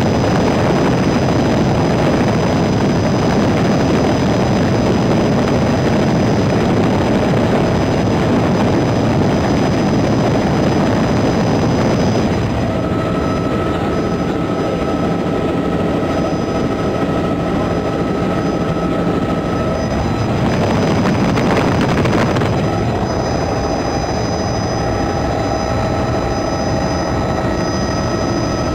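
Helicopter in flight: a loud, steady rotor and engine noise. A little past the middle it eases slightly and a few steady tones come in.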